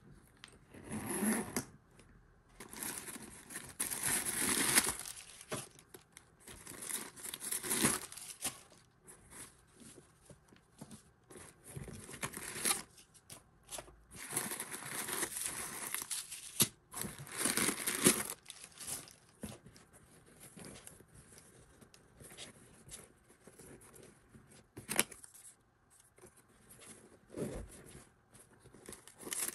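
Crumpled paper stuffing rustling and crinkling as it is pulled out of a handbag, in irregular spells a second or two long with quieter pauses between.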